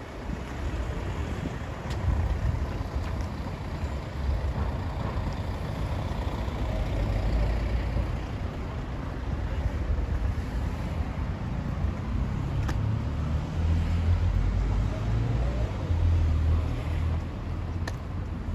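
City street ambience: a steady, fluctuating low rumble of road traffic, with faint passing-vehicle sounds and a few light clicks.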